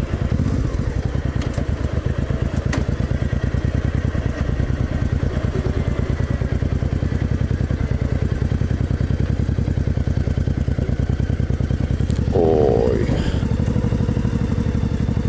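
Honda sidecar motorcycle's engine running at low speed with a steady, even, rapid beat as it rolls across a parking area. A brief voice-like sound comes near the end.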